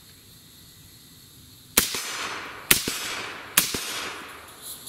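Three semi-automatic rifle shots from an AR-15 in 6.5 Grendel, a little under a second apart, each trailing off in an echo. The rifle is cycling on its heaviest setup, the H3 buffer with the red spring.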